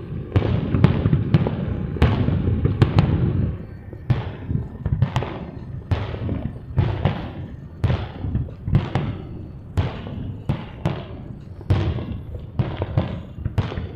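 Fireworks shells bursting: a dense barrage of bangs over a heavy rumble for the first three or four seconds, then separate bangs about two a second, each trailing off in an echo.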